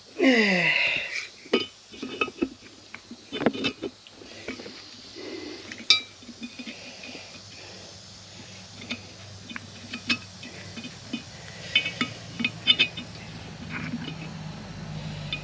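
Metal parts and tools clinking and tapping against each other on a workbench, in scattered light knocks that ring briefly. A short falling whine at the very start, and a faint low steady hum grows in the second half.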